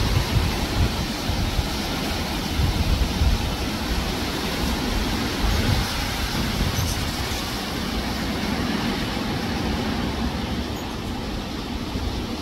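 Gusty wind buffeting the microphone: a heavy low rumble that swells and eases with the gusts.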